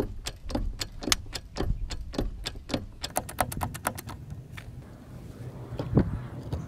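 Hydraulic bottle jack pumped with a length of pipe as its handle: a metallic click on each stroke, about two a second, then a quicker run of clicks. One louder knock near the end.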